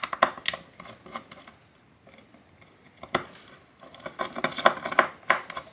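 Small screwdriver clicking and scraping in the metal screw terminals of a power supply's terminal blocks as they are loosened. A run of light clicks at the start, a single sharper click about three seconds in, and a quicker cluster of clicks near the end.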